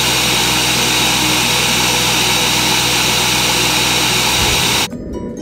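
Countertop blender motor running steadily at full speed, grinding white powdery contents in its jar. It cuts off sharply about five seconds in, and background music with plinking notes follows.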